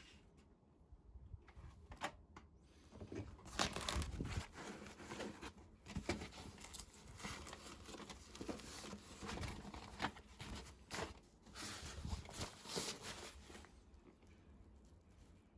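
Irregular crinkling and rustling in uneven bursts, heaviest through the middle stretch and dying down near the end.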